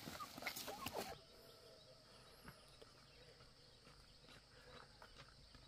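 Chickens in a woven sack squawking briefly as the sack is handled and rustles, for about a second. Then faint, near-quiet outdoor ambience with a steady high hiss and a few faint ticks.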